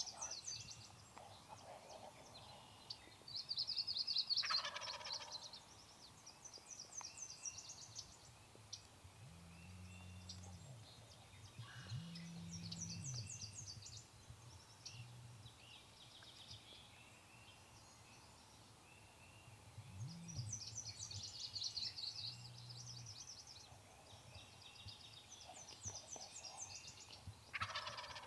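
Wild turkey gobblers gobbling, about four rattling gobbles several seconds apart, the loudest about four seconds in.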